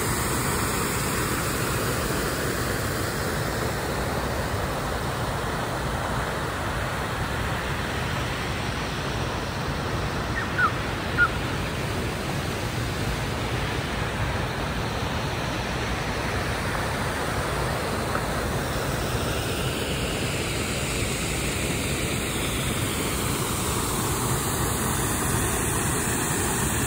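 Steady road and wind noise of a moving vehicle, with two brief louder sounds a little past ten seconds in.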